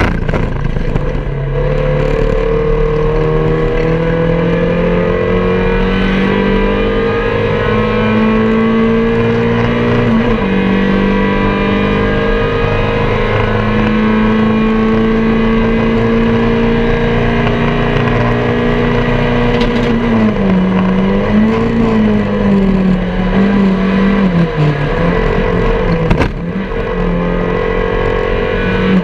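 MG Metro race car's A-series four-cylinder engine running hard under race load, heard from inside the cabin. The note climbs slowly, drops once at a gear change about a third of the way in, then drops and wavers about two-thirds of the way through.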